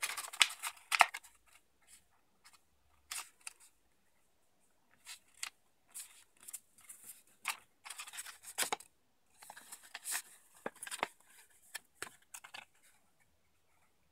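Sheet of printer paper being folded and creased by hand, crackling and rustling in bursts with sharp snaps as the folds are pressed.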